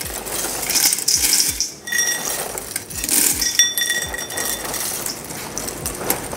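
A stainless-steel measuring cup repeatedly scooping dry cereal from a plastic bag and tipping it into a large stainless stock pot. The cup clinks and rings against the metal several times, with cereal rattling into the pot and the bag rustling.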